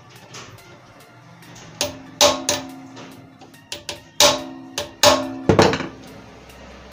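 A hammer striking a screwdriver held in a screw on the rear end cover of an electric cut-off saw's motor: about nine sharp metal knocks, each with a short ring, loudest in the second half, to loosen the screw before opening the cover.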